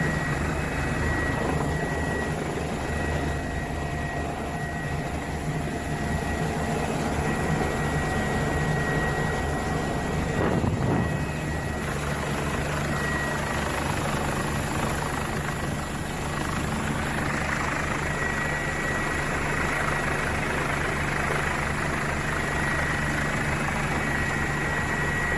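Helicopter running steadily: a continuous rumble of rapid blade chop with a steady high turbine whine above it.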